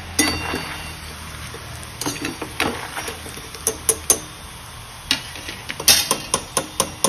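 Metal spoon and wire-mesh skimmer clinking and tapping irregularly against a metal kadhai while stirring and lifting deep-fried peanuts and dal out of hot oil. The frying oil bubbles steadily underneath.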